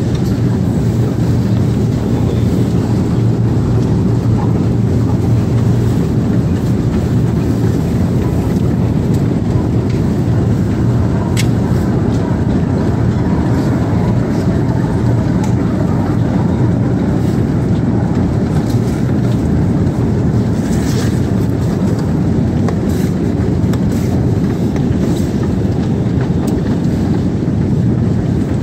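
Escalator running: a steady, low mechanical hum with an occasional faint click.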